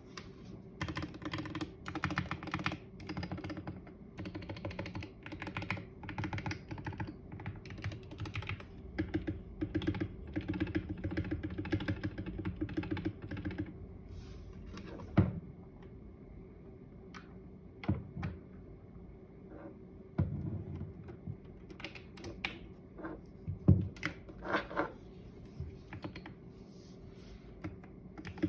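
Computer keyboard being typed on, with keystrokes that have the deep 'poc' sound the title boasts of. A fast, steady run of typing gives way about halfway through to slower, scattered key presses, a few of them heavier thumps.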